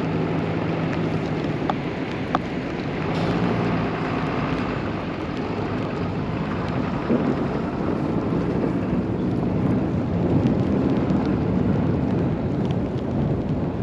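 Steady rushing noise of a snowstorm's wind, with a faint low hum underneath in the first few seconds and a few sharp clicks.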